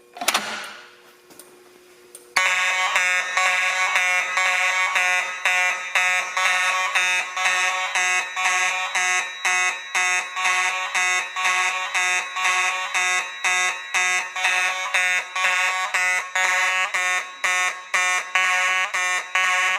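A sharp clack, then about two seconds in fire alarm horns start sounding a loud, rapidly pulsing tone. The tone cuts off suddenly near the end as the alarm is silenced at the panel.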